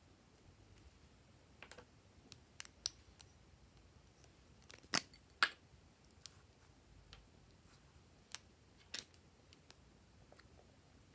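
Sparse sharp clicks and snips from plastic lipstick tubes being handled and scissors cutting off lipstick tips. The two loudest clicks come about five seconds in, half a second apart, with another near the end.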